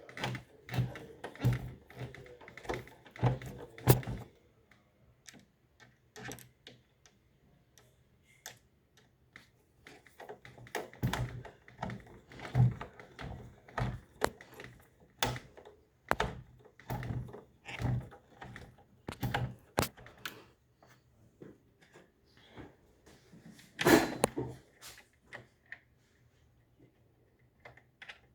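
Irregular clicks, taps and knocks of hands working on a UPS's casing, screws and battery, coming in clusters with a louder clatter late on. A faint low hum runs underneath.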